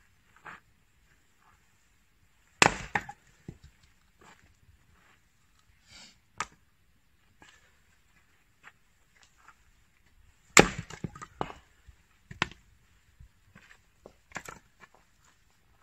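Axe splitting firewood on a chopping block: two loud strikes about eight seconds apart, each followed by a clatter of split wood falling. Lighter wooden knocks come in between.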